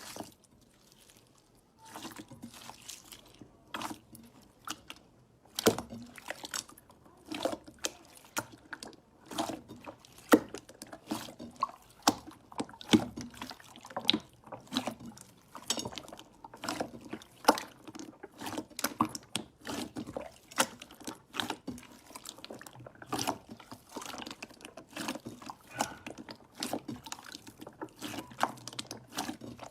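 Slime being squeezed and worked by hand, giving an irregular run of wet clicks and pops, several a second, starting about two seconds in.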